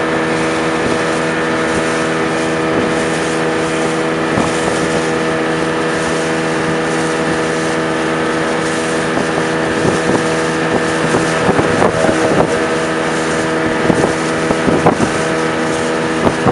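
Speedboat engine running steadily at speed, with wind and water rushing on the microphone. From about ten seconds in, irregular sharp thumps come through over the engine.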